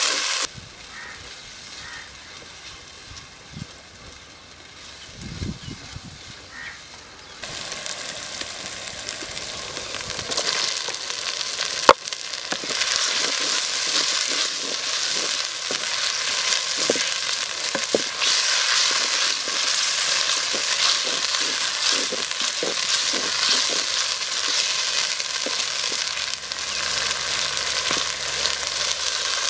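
Sliced shallots and dried red chillies frying in oil in a clay pot, a steady sizzling hiss with a spatula stirring and scraping through them. The sizzle is softer for the first several seconds and grows louder from about ten seconds in, with a sharp knock about twelve seconds in.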